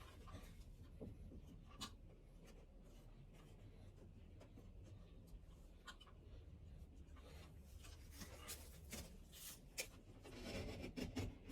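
Faint scratching and rustling with scattered light clicks, growing busier and louder near the end: hand work at a freshly cut wall opening.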